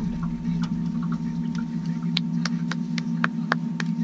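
Boat motor running with a steady low hum while trolling, with a quick series of sharp clicks in the second half.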